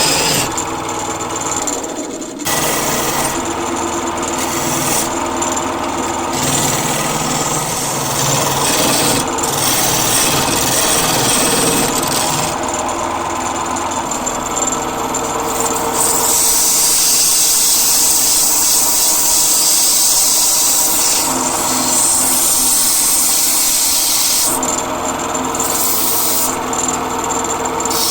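Wood lathe running with a tool working the spinning wood, a continuous rasping hiss over the motor's steady hum. It dips briefly about two seconds in and turns brighter and hissier for several seconds past the middle.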